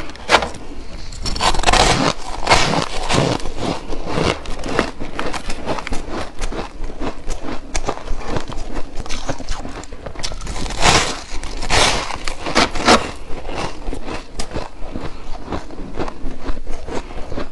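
Close-miked chewing of shaved ice: a continuous run of crisp crackling crunches, with louder bites about 2 seconds in and again around 11 to 13 seconds.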